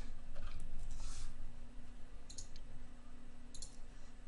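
A few scattered clicks in small clusters from computer keys and mouse buttons being pressed.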